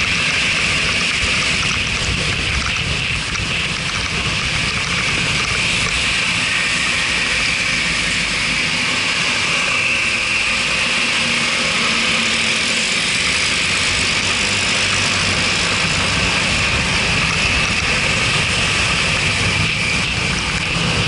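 Suzuki scooter's engine and the road and wind noise of riding, muffled through an action camera's waterproof housing: a steady, even noise with no breaks.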